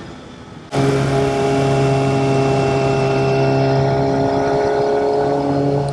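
Kawasaki Ninja ZX-6R inline-four sport bike engine running under way at a steady high pitch. The engine note comes in suddenly and loud under a second in, after a quieter start.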